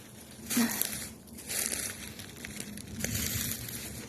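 Footsteps crunching through dry leaf litter and brush, with twigs and branches scraping past, in three rustling bursts.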